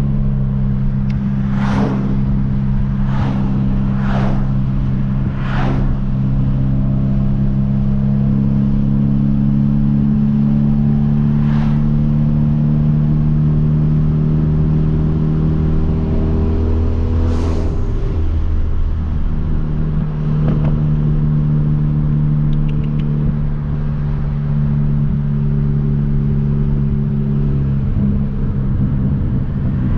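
Hyundai Veloster Turbo's 1.6-litre turbocharged four-cylinder, with a catless downpipe and tune, droning steadily while cruising, heard from inside the car with the windows down. Several sharp cracks come in the first few seconds, with single ones later on. The engine note shifts briefly a little past halfway.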